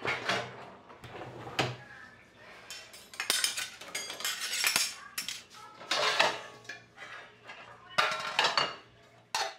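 Dishes, steel pots and cutlery clinking and clattering in a dishwasher's wire racks as they are handled, in repeated bursts.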